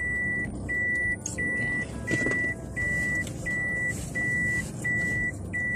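An electronic warning beep at a single high pitch, repeating evenly about three times every two seconds, over a low background rumble.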